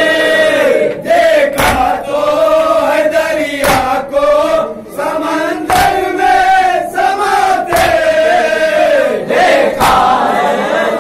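Men chanting a Shia mourning salaam together in a slow, held melody, with a loud unison chest-beating (matam) stroke about every two seconds keeping time.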